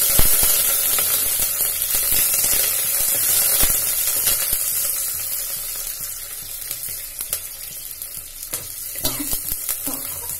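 Shallots, curry leaves and red chillies sizzling in hot oil in a clay pot with mustard seeds, cumin and fenugreek, just tipped in. The sizzle is loud at first and dies down after about six seconds, while a metal spoon stirs them with a few light clicks.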